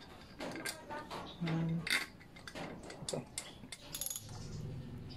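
Socket ratchet wrench clicking, with metal clinks of the tool against bolts, while a bolt is turned on a motorcycle engine's cylinder head. A low steady hum sets in near the end.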